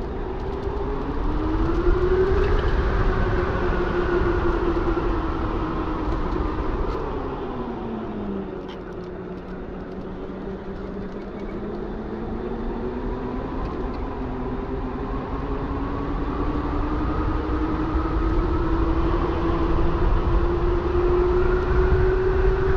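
Electric bike's QS 273 hub motor whining while riding, its pitch rising as the bike speeds up, dropping as it slows about eight seconds in, then climbing gradually again. A steady low wind rumble runs underneath.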